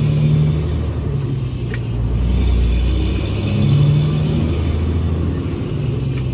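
Peterbilt semi truck's diesel engine running steadily, heard inside the cab as the heavily loaded truck drives. There is one short click about a second and a half in.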